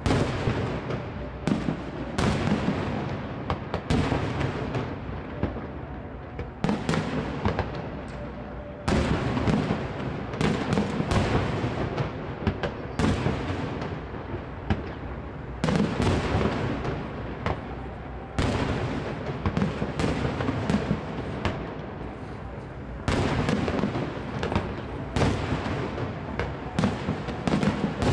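Aerial fireworks shells bursting overhead: many sharp bangs in quick succession, each trailing off in a rolling rumble, with fresh volleys coming every few seconds.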